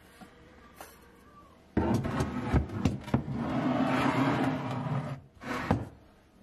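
Glass jars knocked and set down on a cupboard shelf, a few sharp clunks, partly under a loud steady drone that starts abruptly about two seconds in and stops about three seconds later.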